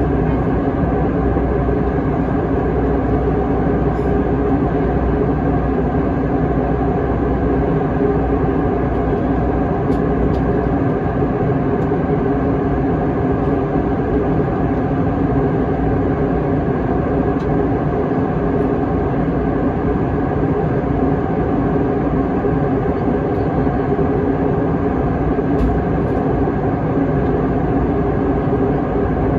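Steady cabin drone of an Airbus A321 in cruise: jet engine and airflow noise, an even rumble with a low hum running through it.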